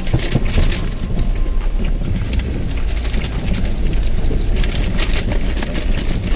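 Paper takeout bag rustling and crinkling in short bursts as it is opened and handled, over a steady low rumble inside a car.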